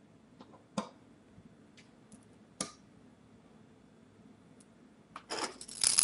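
Small metal clicks of a long SSD mounting screw being fitted into a hole in a steel computer case panel, a few single clicks at first, then a busy run of clicking and scraping about five seconds in as a small precision screwdriver starts turning the screw.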